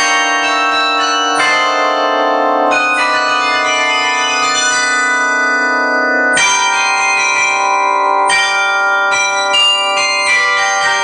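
Carillon bells (Ijsbouts-Frietsen) playing a pop-song melody. Struck bell notes ring on with long overlapping overtones, some in quick runs and others left to sound for a few seconds.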